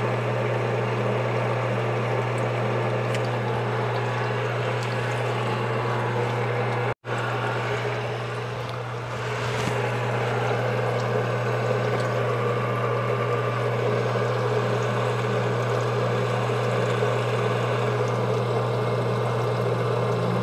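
Sunnen honing machine running with its coolant pump on: a steady low hum, with honing oil pouring from the nozzle and splashing into the tray. The sound cuts out for an instant about seven seconds in.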